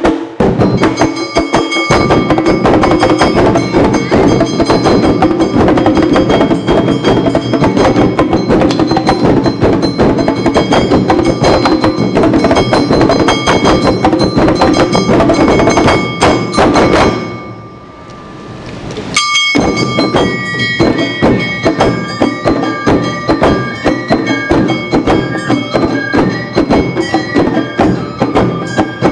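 Live Awa Odori festival music: drums and a ringing kane hand gong beat out a fast, driving rhythm with shamisen and shinobue flute over it. The music breaks off for about two seconds two thirds of the way through, then starts again with the flute melody standing out.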